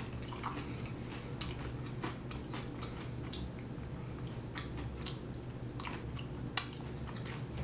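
A person chewing and biting into deep-dish pizza crust topped with salad bits, with many small crisp clicks and one sharp click about six and a half seconds in.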